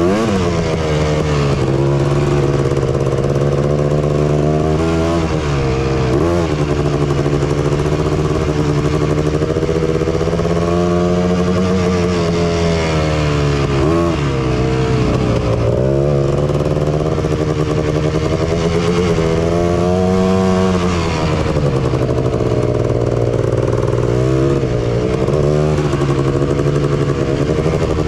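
Honda TRX250R ATV's two-stroke single-cylinder engine running under riding load, its pitch rising and falling repeatedly as the throttle is opened and eased off.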